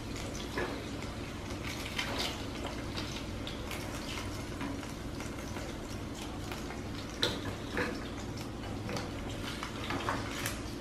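Hot oil in a nonstick frying pan sizzling and crackling steadily just after the heat is turned off. Chopsticks and a metal spoon click against the pan now and then as tuna steaks are lifted out.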